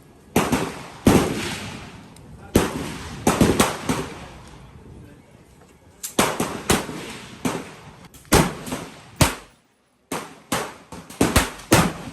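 Repeated gunshots, including 12-gauge shotgun fire: sharp reports, some single and some in quick runs of three or four, with a short lull about halfway through.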